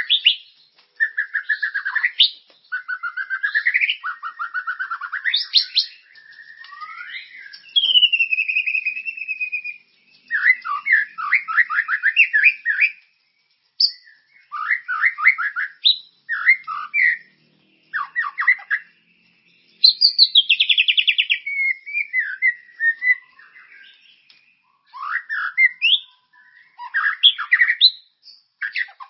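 White-rumped shama (murai batu) singing continuously, a varied song of clear whistles, rising and falling glides and rapid trills in short phrases with brief pauses between them. It is a 'gacor' lure song, played to prompt other songbirds to sing.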